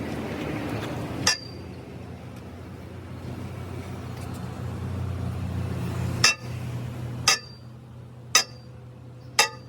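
Five sharp hammer blows on metal, each with a short bright ring. The first comes about a second in and the last four fall about a second apart, over a low steady hum.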